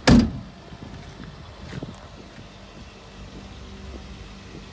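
A Jeep Wrangler door slams shut with one sharp thud right at the start. After it comes a faint, steady hum of the Wrangler's 3.6-litre V6 running at idle.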